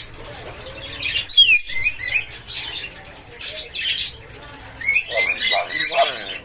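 Pet birds chirping and whistling in several short bursts of quick, high, sweeping notes.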